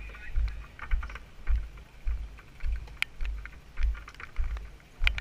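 Footsteps at an even walking pace, about two a second, each a dull thump picked up by a body-worn camera, with light clicking between the steps.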